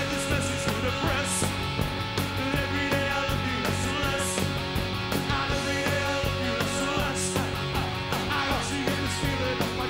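Rock band playing live: electric guitars, bass and drums, with a male lead singer.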